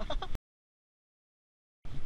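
A voice trailing off, then about a second and a half of dead silence where the footage is cut, then a steady rushing noise of fast river water starting again near the end.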